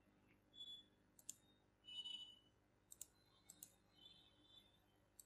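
Near silence with a few faint, sharp clicks and soft rustles.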